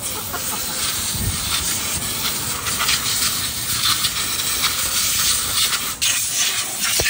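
Loud, steady hiss of a pressurised jet, such as compressed air from a blow gun, cutting out for a moment about six seconds in.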